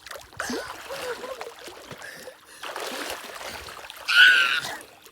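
Water splashing and sloshing, with a brief high-pitched cry from a voice about four seconds in.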